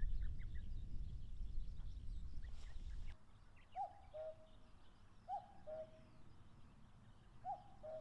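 Common cuckoo calling its two-note "cuck-oo" three times, about every two seconds, each call a higher note falling to a lower one, starting about four seconds in. Before that a low rumble cuts off abruptly about three seconds in, with faint chirps of small birds.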